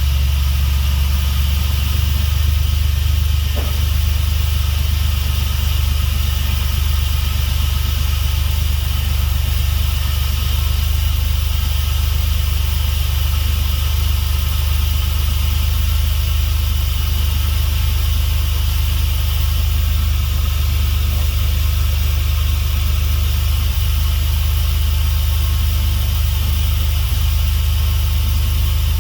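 Dodge 3.7-litre V6 idling steadily in the engine bay, staying running after a no-start was fixed with a new reluctor ring.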